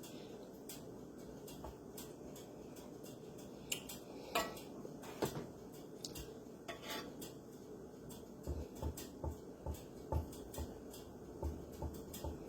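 A knife and utensils clinking and tapping against dishes while raw chicken breasts are cut open for stuffing: scattered light clicks, a few sharper clinks a third of the way in, then a run of soft low knocks in the second half.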